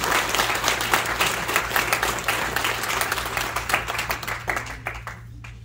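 A small audience applauding after a song, the clapping thinning out and dying away near the end.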